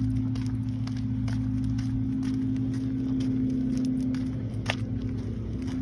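A steady low mechanical hum, like an engine running, with scattered light clicks and taps over it and one sharper click near the end.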